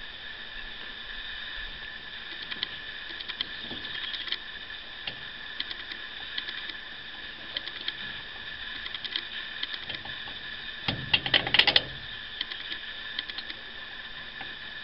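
Small metallic clicks and rattles of the bolts and nuts being threaded by hand onto the bottom flange of a Bell & Gossett circulator pump, with a louder burst of clattering a little past halfway. A steady high hum runs underneath.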